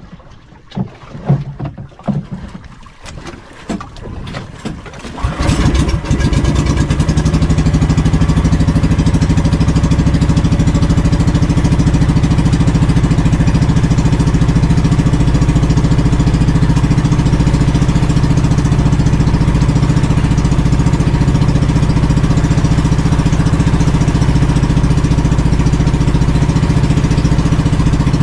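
Outrigger fishing boat's engine starting about five seconds in, after a few knocks and clatters, then running steadily as the boat moves off.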